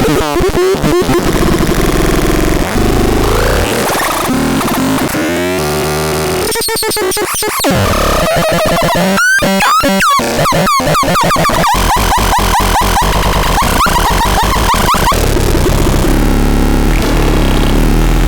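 Synthesizer playing harsh, noisy electronic tones with fast up-and-down pitch sweeps, over a low rumble. Partway through, a steady high tone with a rapid clicking pulse comes in for a few seconds.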